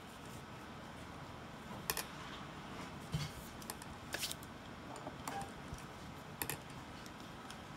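A handful of light clicks and knocks, spread out, from the motor and piston assembly of a percussion massage gun being handled and fitted into its plastic housing.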